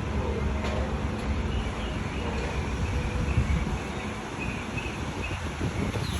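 Automatic car wash machinery and the car running together as a steady low rumble.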